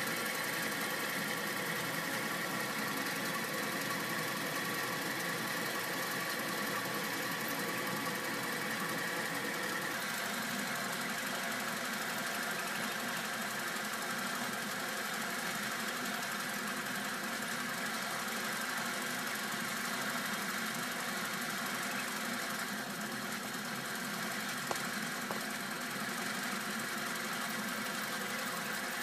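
Four-cylinder steam engine running steadily, driving a generator and water pumps: an even mechanical running sound made of several steady tones, with one small click near the end.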